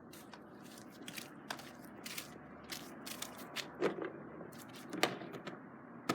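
Irregular crunching and crackling with many sharp clicks, like footsteps through dry leaves and twigs, with two louder knocks about 4 and 5 seconds in.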